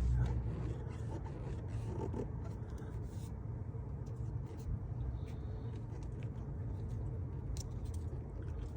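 1988 Jeep XJ engine idling steadily, with faint scraping and rubbing sounds over it.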